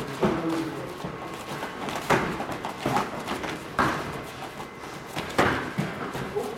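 Light Muay Thai sparring: about half a dozen sharp slaps and thuds of punches and kicks landing on boxing gloves and shin guards, spaced irregularly, with feet shuffling on foam mats in between.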